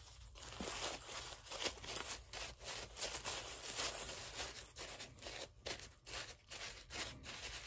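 Thin plastic tablecloth sheeting crinkling and rustling in quick, irregular crackles as it is scrunched and shaped by hand.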